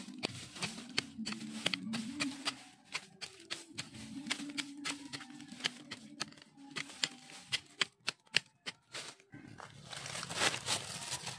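A short wooden-handled blade chopping and scraping into dry, stony soil to dig a planting hole: irregular sharp knocks and gritty scrapes. They pause briefly about eight seconds in, then resume as a denser scraping of loose earth.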